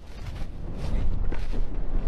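A low rumbling rush of noise that grows louder through the first second and then stays loud.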